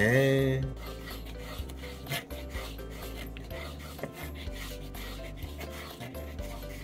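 Kitchen knife slicing raw chicken gizzards against a wooden cutting board: repeated short rasping cuts through the firm meat, over quiet background music.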